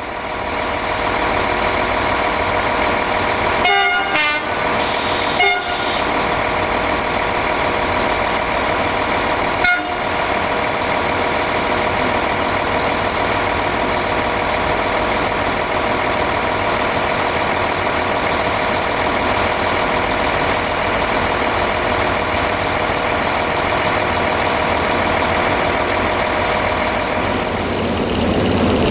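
CFR LDE2100 (060-DA) diesel-electric locomotive's Sulzer diesel engine running steadily as the locomotive moves slowly while shunting. Its horn sounds two short blasts about four and five and a half seconds in, with a short sharp sound near ten seconds in.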